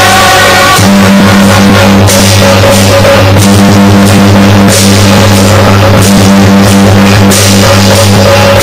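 Loud, overdriven percussion-heavy music with drums and cymbals over a steady low hum.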